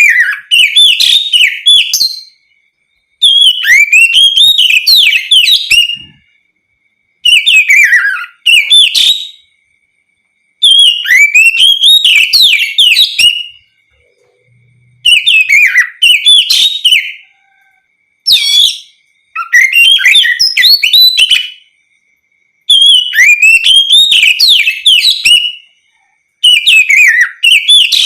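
Oriental magpie-robin singing its full, loud song: phrases of rapid, sweeping whistles and trills, each two to three seconds long, repeated with short pauses between.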